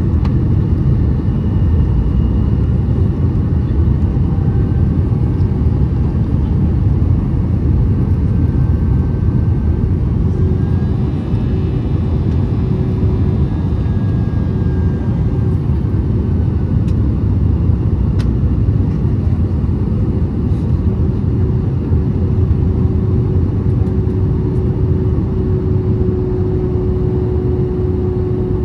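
Cabin noise aboard an Airbus A321 in flight on approach: a steady low rumble of engines and airflow, with a faint steady hum over it.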